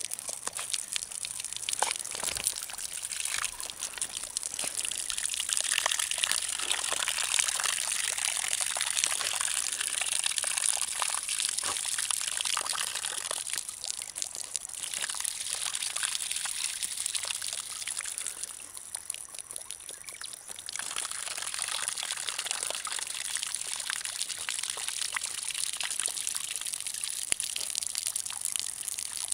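Small waterfall pouring and splashing steadily, with irregular sharp splashes as a Labrador puppy grabs at the falling water. It eases briefly about two-thirds of the way through.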